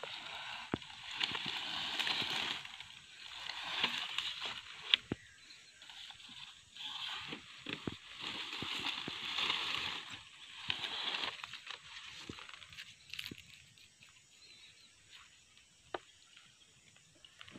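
Dry palm fronds rustling and crackling as they are pushed and dragged aside with a palm stalk, in several bursts over the first eleven seconds with a few sharp snaps, then quieter near the end.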